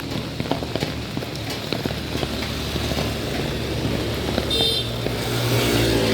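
Motor vehicles running past on a wet road in the rain, a steady engine hum under rain hiss and scattered drop clicks, with one short high beep about four and a half seconds in and an engine growing louder near the end.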